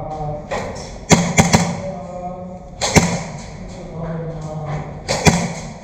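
Airsoft guns firing single shots, heard as sharp cracks: three in quick succession just after a second in, another at about three seconds, and one more near the end.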